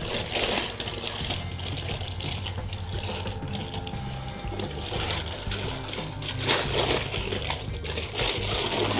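Thin clear plastic packaging bag crinkling and rustling as it is handled, in irregular rustles that grow louder about two-thirds of the way through.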